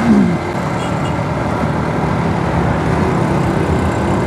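Honda CD-70 motorcycle's small single-cylinder four-stroke engine running on the move, mixed with wind and road noise at a chin-mounted phone, with a brief drop in pitch at the start.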